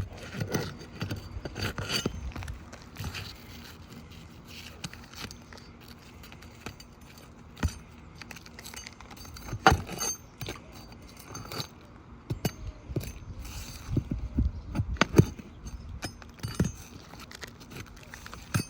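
Metal pry bar working roofing nails out from under asphalt shingles: irregular sharp metallic clicks and short scrapes, the loudest about halfway through and again near the three-quarter mark.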